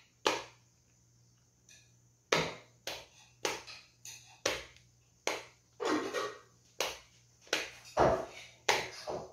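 A fidget toy with a numbers side being worked through, giving a series of about ten short sounds roughly half a second apart, starting about two seconds in.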